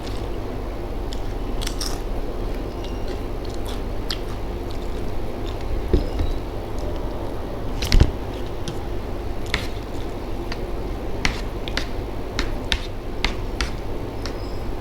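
A person eating: chewing with scattered sharp clicks and crisp crackles, the two loudest about six and eight seconds in, over a steady low hum.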